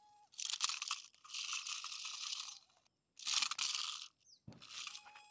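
Remote-control king cobra toy snake grinding over a stony surface in three short bursts of gritty noise, stopping between them as it keeps snagging on the stones.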